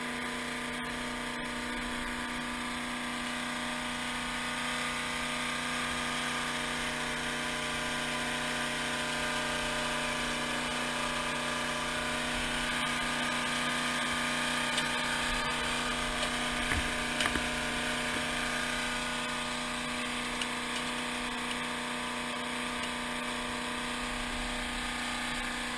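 A small engine running steadily, a constant drone with a fixed low hum, with a few brief sharp sounds about midway through.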